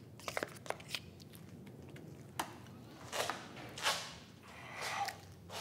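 A painting knife working a thick load of black paint: a few small clicks, then three short wet scraping swishes as the blade is drawn through the paint.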